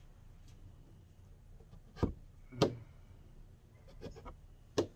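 Hard card squeegee being worked over wet window tint film on a car's rear glass: a few sharp clicks and taps, the first about two seconds in, against a low quiet background.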